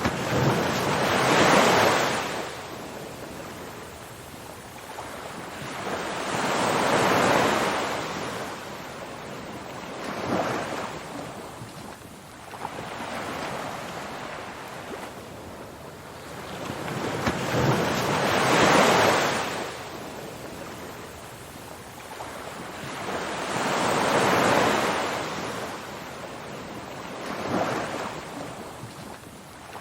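Ocean surf: waves washing in and drawing back, the hiss swelling and fading every few seconds, some waves louder than others.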